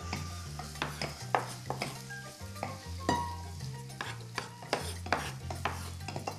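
Chicken pieces sizzling in a pot as a wooden spoon stirs them, with irregular knife chops on a wooden cutting board as parsley is chopped. Background music with a low bass line underneath.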